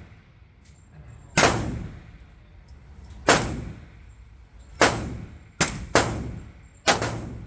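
Glock 23 .40 S&W pistol firing six shots at an uneven, deliberate pace, with two or three seconds between the first few and the last ones closer together. Each shot echoes briefly.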